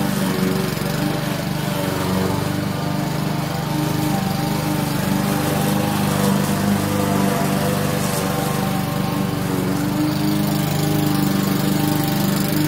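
Gas walk-behind push mower's small engine running steadily as it cuts grass.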